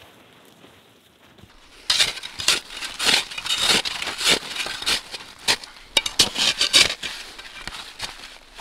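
Snow crunching in a quick, irregular run of sharp strokes, starting suddenly about two seconds in after a faint, quiet stretch.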